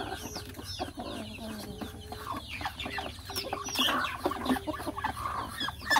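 Young chickens peeping and clucking: many short, high, falling peeps in quick succession, over a low steady call that breaks off now and then, with scattered light taps.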